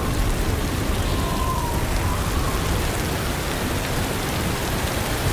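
Steady rain falling, a dense hiss of drops. Under it runs a low rumble of thunder that dies away about halfway through.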